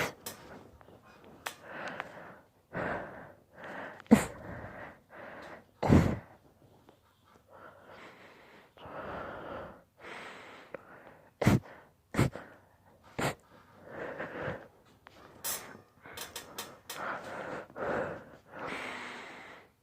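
A man's induced sneezing fit: a run of sharp, loud sneezes, the strongest about four and six seconds in and a cluster around twelve seconds, with wheezy, gasping breaths drawn in between them.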